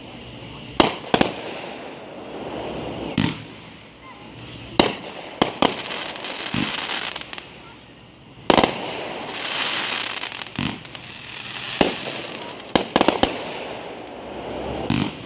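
Fireworks going off: about a dozen sharp bangs at irregular spacing, a few coming in quick crackling clusters, with hissing swells in between.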